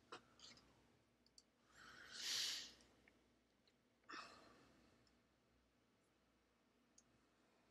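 A person sighing: one long breath out about two seconds in, then a shorter, fainter breath about four seconds in, with a few faint clicks.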